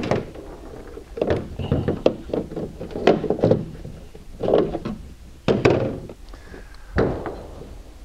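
Loose nuts, bolts and trunk lock parts clinking and knocking against the painted steel deck lid of a 1967–68 Mercury Cougar as they are handled and set down, in several short clusters of knocks.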